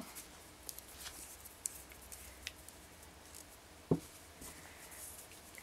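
Faint scattered clicks and light handling noises of small craft materials on a work table, with one sharper knock about four seconds in.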